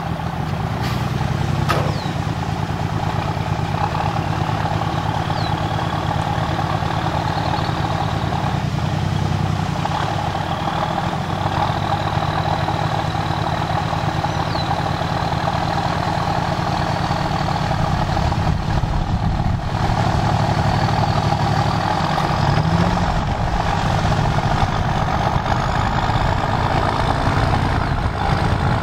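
Military six-wheel-drive truck's diesel engine running steadily under load while it tows a stuck Ford Explorer out of mud on a tow strap, with a high whine rising slowly through the pull. Near the end the Explorer's rear wheels spin, throwing up mud spray.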